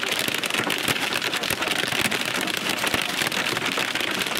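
Heavy rain pelting the car's roof and windshield, heard from inside the cabin as a steady, dense crackle of drops.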